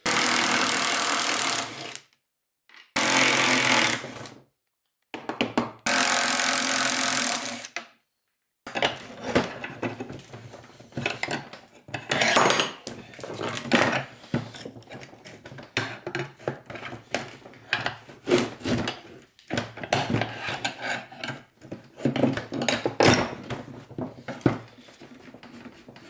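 Cordless impact driver spinning off the carbide runner nuts under a snowmobile ski in three bursts of about two seconds each. Then a long screwdriver scrapes and knocks irregularly as the worn carbide runner is pried out of the ski's underside.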